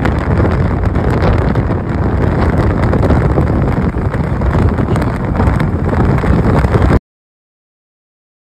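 Loud, steady rumbling noise with wind buffeting the microphone, cutting to dead silence about seven seconds in.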